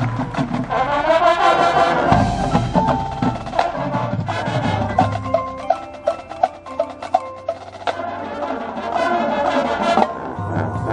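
High school marching band playing its field show: brass and drums, thinning in the middle to a stretch of quick clicking percussion and short repeated struck notes before the fuller band returns near the end.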